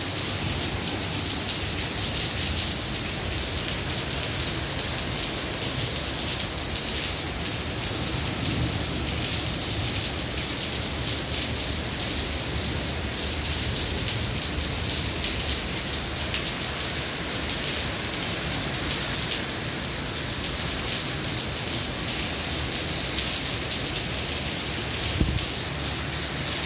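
Heavy rain pouring steadily onto pavement, flooded tarmac and parked cars, a continuous dense hiss of falling water. A single brief thump near the end.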